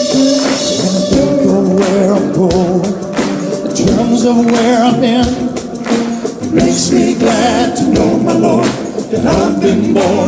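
Rock song with singing: long, wavering sung notes over a band with regular percussion hits.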